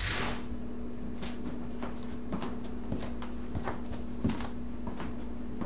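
A brief whoosh at the start, then a steady low hum with scattered light knocks and clicks of household objects being handled and moved about.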